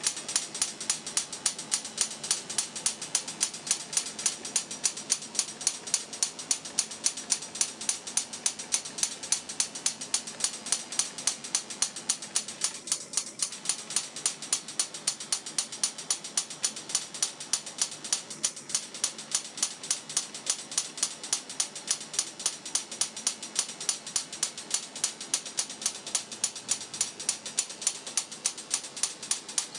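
High-voltage spark gap firing over and over: a steady train of sharp snapping clicks, about four a second, keeping an even rate and level.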